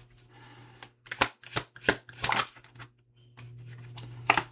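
Tarot cards being shuffled and handled, with a run of sharp card snaps and slaps, about half a dozen, and one more near the end, over a steady low hum.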